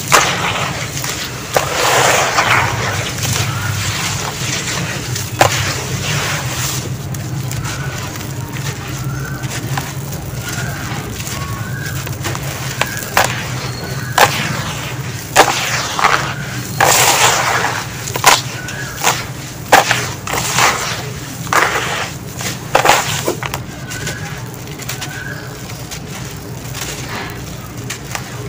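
Hands crunching and crumbling dry, gritty sand and gravel in a tub: grainy rustling with clusters of sharp crunches as lumps break and grit pours back down.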